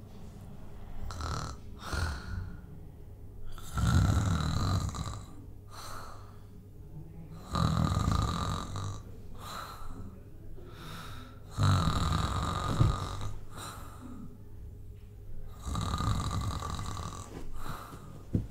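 A man snoring loudly in a steady rhythm: a long rasping snore about every four seconds, each lasting about a second and a half, with softer breaths in between.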